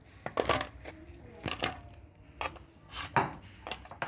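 Chopped fruit being tipped from a glass bowl into a metal mould, with irregular knocks and clinks of the bowl and utensils against the metal and fruit pieces dropping in.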